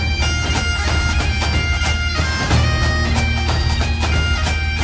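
Bagpipe music: a tune played over a steady, unbroken drone.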